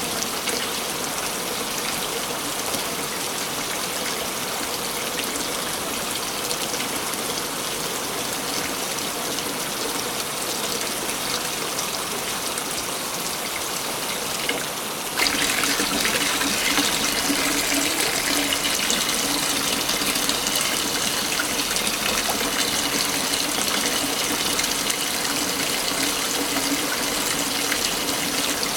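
Waterfall rushing in a steady stream. About halfway through, the sound changes abruptly to a slightly louder, brighter rush.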